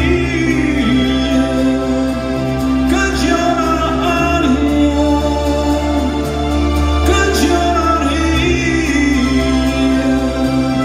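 Live acoustic band music: strummed acoustic guitars with a flute playing a slow, wavering melody over sustained chords.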